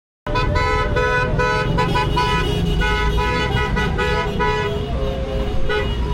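Car horns honking in quick repeated beeps over the low rumble of road traffic. The rapid beeping stops a little before the end, leaving scattered longer horn tones and the traffic noise.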